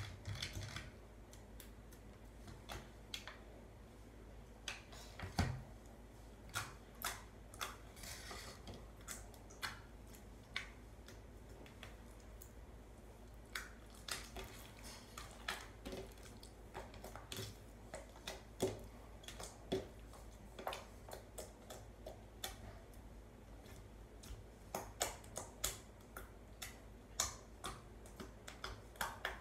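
Faint, irregular soft clicks and taps as homemade slime is mixed with a borax-and-water activator.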